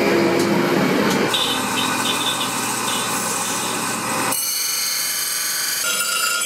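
A motor-driven grinding wheel running, then, about four seconds in, a leaf-spring steel knife blade ground against the abrasive wheel: a harsh, high hiss with several steady whining tones. The sound changes abruptly twice.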